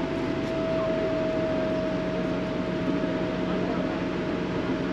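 Passenger ferry underway, heard from its open upper deck: a steady rush of engine and water noise, with a steady high tone held through it and a lower hum joining about two seconds in.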